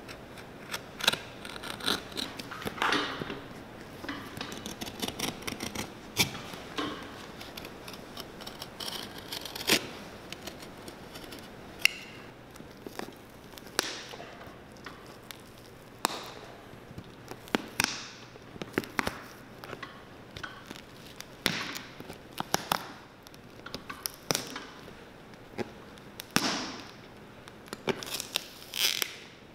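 Hand tools prying and cutting a glued leather sole off a cowboy boot: irregular sharp clicks, snaps and short scraping tears as the sole comes loose.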